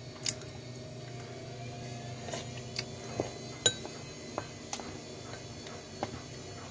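Wooden chopsticks tapping and clinking against a ceramic bowl while stirring noodle soup: a scattering of sharp taps, the loudest a little past halfway with a brief ring. A steady low hum runs underneath.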